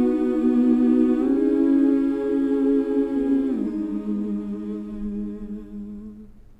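Wordless hummed vocal music in long held notes. The pitch steps up about a second in and glides down a little past the middle, then fades away near the end.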